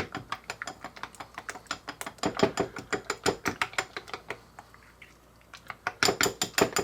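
A utensil stirring rapidly in a bowl, clicking against its sides at about five strokes a second, as slime powder is mixed into Coke; it stops briefly about four seconds in, then starts again near the end.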